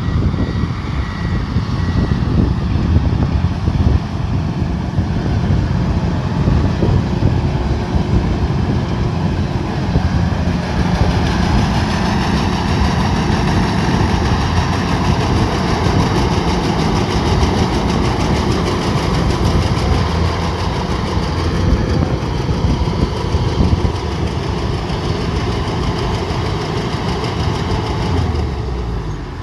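Rice combine harvester's engine running steadily with a heavy low rumble. A higher mechanical whine joins about ten seconds in and carries on.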